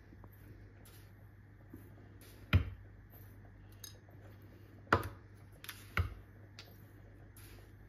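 A small spoon clinking against a ceramic sugar canister and a metal bowl as brown sugar is scooped out: four short sharp clinks, one about two and a half seconds in and three more between about five and six seconds in, over a faint low hum.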